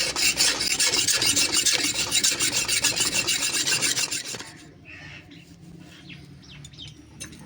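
Rapid rhythmic rasping strokes of a hand tool on metal, about five a second, which stop about four and a half seconds in.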